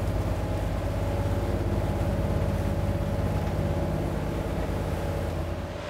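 A boat's inboard engine runs steadily, heard from inside the wheelhouse as a low, even drone while the boat creeps along at low speed.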